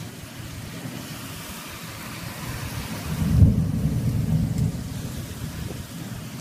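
Thunder cracks about halfway through and rumbles on for a second or two over the steady hiss of heavy rain.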